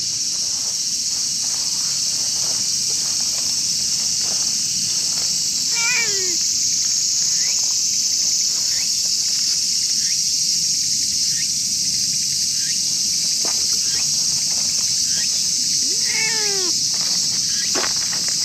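A cat meows twice, each a short call falling in pitch, about six seconds in and again near the end, over a loud steady high buzz of insects.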